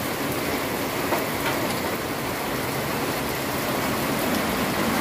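Heavy rain pouring steadily onto open water, a dense even hiss of drops hitting the surface.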